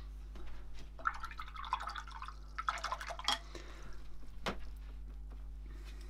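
A paintbrush being swished and rinsed in a jar of water, with splashing and trickling and a few sharp taps, the strongest about three seconds in and again a second later. A steady low electrical hum runs underneath.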